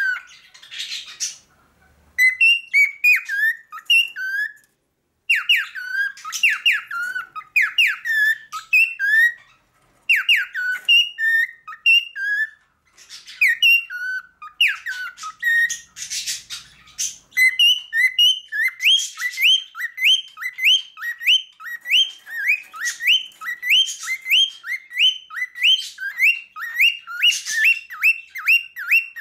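Male cockatiel singing its whistled song: varied phrases of rising whistles broken by short pauses and a couple of harsh, scratchy calls, then from about two-thirds of the way through a fast, steady run of the same upslurred whistle repeated about twice a second.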